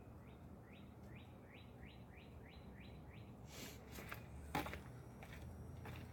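A bird calling a quick series of about eight notes, each falling in pitch. Then a few sharp clicks and knocks, the loudest about four and a half seconds in.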